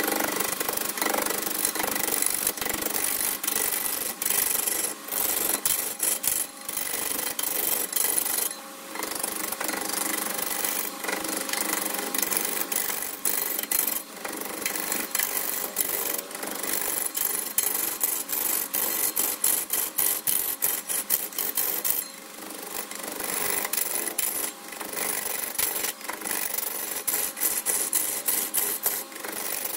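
Turning tool cutting a wooden blank spinning on a wood lathe: a continuous scraping hiss, broken by many brief gaps as the tool comes on and off the wood.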